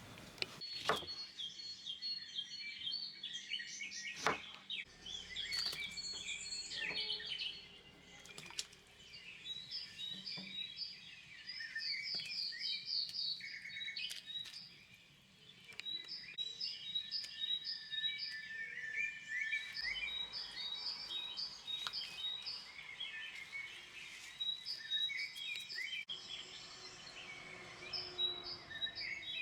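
Several songbirds chirping and singing in quick repeated phrases of spring birdsong, with a few short clicks or knocks in the first seconds.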